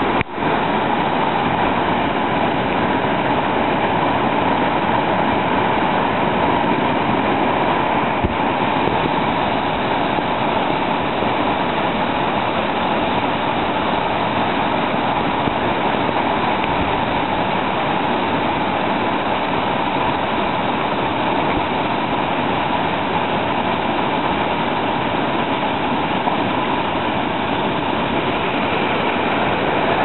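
Whitewater rapid rushing over boulders: a loud, steady wash of churning river water.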